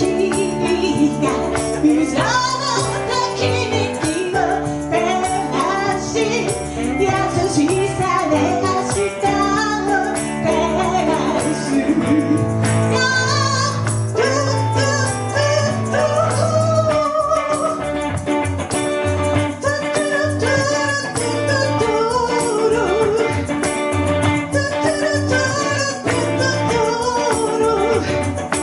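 A song played live: a voice sings a gliding melody over steady bass notes and frequent light percussion hits.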